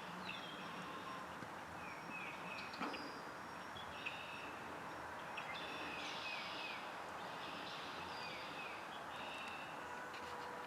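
Wild birds chirping: many short, quick falling chirps repeated over a steady outdoor hiss, with a single soft knock about three seconds in.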